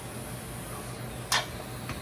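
Steady low hum of the welding shop, with the TIG arc shut off. A single sharp click comes a little past halfway, and a fainter one near the end, from handling of the torch or work.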